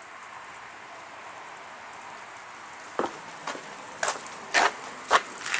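Steady outdoor hiss, then from about three seconds in a handful of short, irregular scuffing crunches from someone moving about with the camera.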